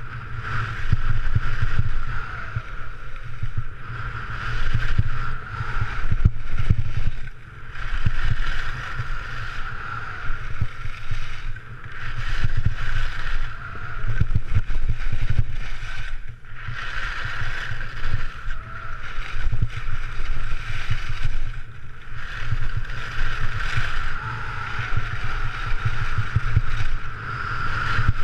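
Skis scraping and carving over groomed snow through a run of turns, the hiss swelling and dipping every second or two, with wind rumbling on the microphone.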